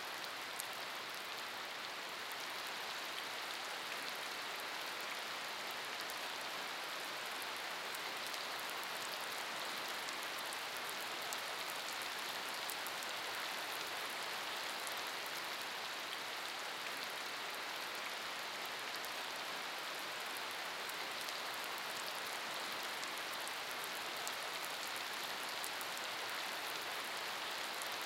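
Steady rain falling onto puddles on a wet paved surface: an even hiss flecked with fine ticks of individual drops, unchanging in strength.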